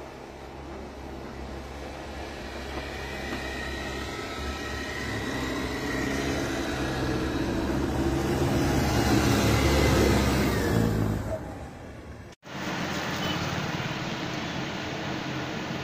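Tracked snowcat engine running as the machine drives toward and close past through snow, growing louder until about ten seconds in, then fading. After a sudden cut, a steady hiss of rain and light traffic on a wet street.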